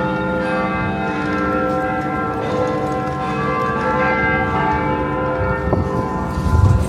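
Bells ringing, many tones sounding together and overlapping, with a low thump near the end.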